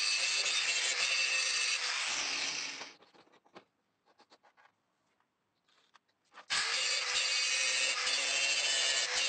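Angle grinder working rust off a steel axe head, running with a steady hiss and hum, winding down about three seconds in. A few faint clicks follow in near silence. About six and a half seconds in the grinder starts again abruptly and runs on.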